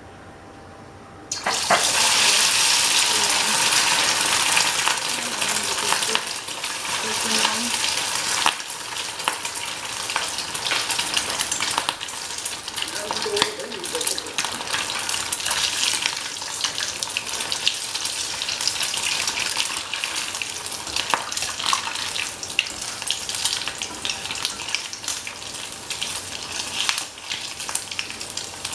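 Basa fish pieces coated in egg and cornflour going into hot mustard oil: loud sizzling starts suddenly about a second in, then settles into a steady deep-frying sizzle with scattered crackles.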